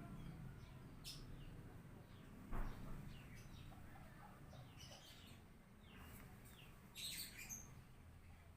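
Faint bird chirps: short, high calls scattered throughout, more of them together near the end. There is one dull thump about two and a half seconds in.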